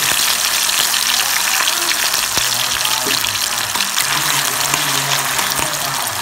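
Diced pieces frying in hot oil in a wok: a steady sizzle, with a few sharp clicks of a spatula stirring.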